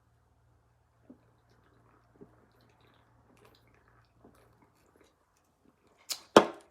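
Quiet chewing and lip smacking of someone eating a chili cheese dog, with a few soft wet clicks, then two loud, sudden sounds in quick succession near the end.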